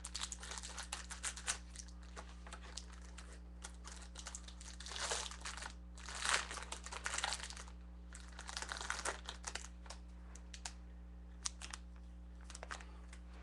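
A pack of sports cards being opened by hand: the wrapper crinkles and tears in several bursts of crackling.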